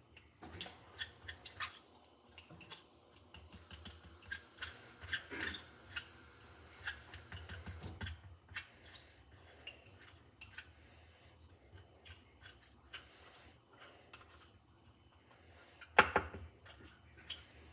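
Plastic spoon scraping and clicking against a small bowl as cornstarch and hair conditioner are stirred into a crumbly slime dough, in quick irregular strokes. One sharper, louder knock near the end.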